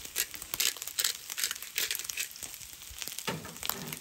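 Pepper mill grinding black peppercorns: a run of short, dry crunching cracks, about two or three a second, with a duller knock near the end.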